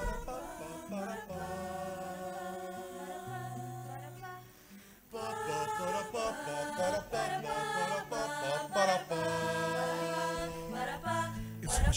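A mixed men's and women's tuna choir singing long held chords a cappella, in two phrases with a short break about five seconds in.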